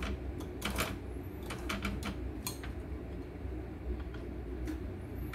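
Irregular clicks and clacks from an opened-up embroidery machine's mechanism as its handwheel is turned by hand and parts around the hook area are handled, over a steady low hum.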